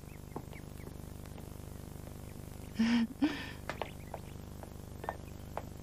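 Low steady background hum with a few faint clicks, and a short breathy voice sound in two quick parts about three seconds in.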